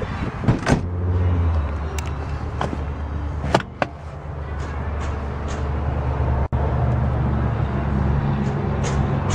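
A car engine idling as a steady low hum. Several sharp clicks and knocks from handling interior parts sound over it, mostly in the first four seconds.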